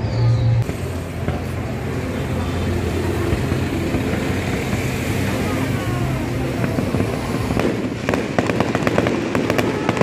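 Fireworks going off, with a rapid run of crackling pops from about eight seconds in, over a steady low drone of road traffic.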